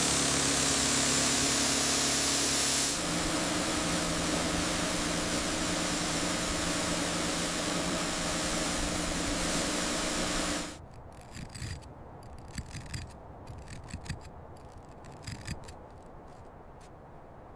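An engine running steadily under a loud hiss, cutting off suddenly about ten and a half seconds in; faint scattered clicks and rustling follow.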